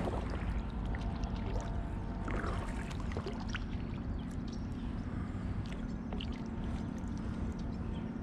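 Kayak paddle dipping and working in the water beside the boat, with small splashes, drips and sloshing, over a low steady rumble.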